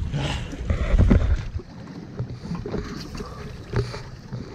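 Wind buffeting the microphone over the noise of a fishing boat at sea, with a heavy rumbling gust about a second in and a few scattered knocks.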